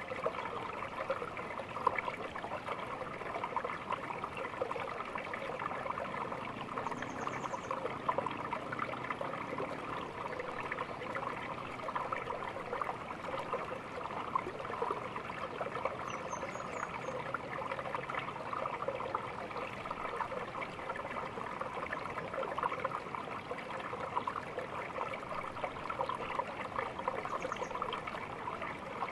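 Small stream flowing and trickling steadily, an even gurgle with no pauses. Three brief, faint high chirps sound over it at wide intervals.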